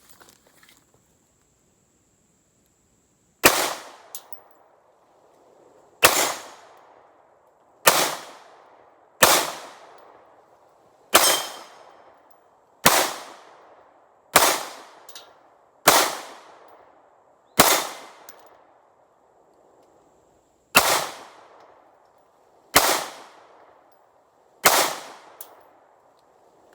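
Twelve shots from a Smith & Wesson CSX 9mm micro-compact pistol, starting about three and a half seconds in. It is slow fire, about one shot every one and a half to two seconds, with a longer pause after the ninth, and each crack trails off in a short echo.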